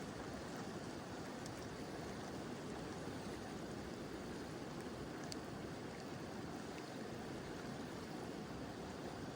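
Mountain river rushing steadily, with light rain falling and a few faint ticks.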